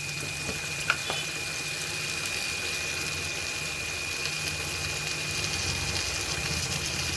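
Prawn and gongura curry with tomato and a little water sizzling steadily in a kadai, with one short click about a second in.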